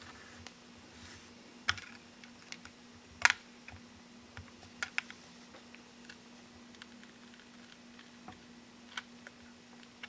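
Irregular small clicks and taps of plastic opening picks being worked between a Samsung Galaxy S5's glass screen and its frame to free the screen from its adhesive, a few sharper clicks among them, over a faint steady hum.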